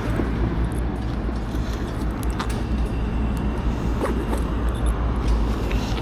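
Steady low rumble with a noisy haze over it and a few faint clicks.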